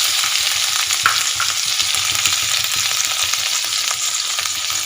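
Freshly ground ginger paste sizzling and frying in hot ghee in a kadai, a steady hiss, with a few light clicks of a spoon stirring it.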